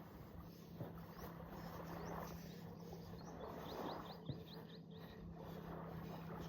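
Faint ambience with a steady low hum, and about three and a half seconds in a bird gives a quick run of about eight short, high chirps.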